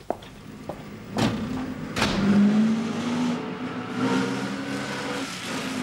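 Two knocks, then a vintage open touring car's engine running steadily as the car drives along.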